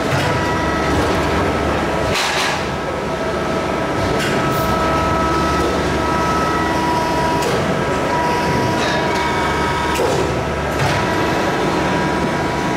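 Maru Kikai 300-ton, 4-metre press brake running as it bends a long steel plate: a steady machine noise with a high whine, and a few sharp metal knocks, about two seconds in and again near ten seconds.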